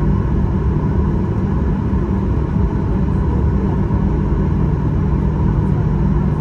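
Jet airliner cabin noise while taxiing: the engines run at low taxi power, a steady low rumble and hum that does not change.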